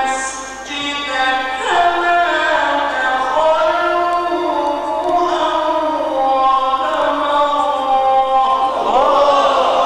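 A male reciter chanting the Quran in the ornamented mujawwad style, holding long, slowly gliding melismatic notes. Near the end, many listeners' voices break in over one another.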